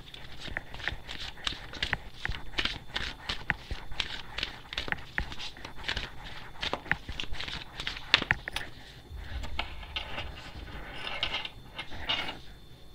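A deck of oracle cards being shuffled by hand: a long run of soft, irregular card flicks and slaps.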